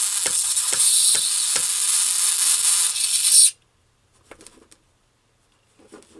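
Lightsaber sound board's hum played through a small bare speaker, a harsh, hissy buzz with a regular crackling tick, that cuts off suddenly about three and a half seconds in. The sound is horrible, which the builder later puts down to the loose speaker facing up rather than sitting on a surface; a few faint handling clicks follow.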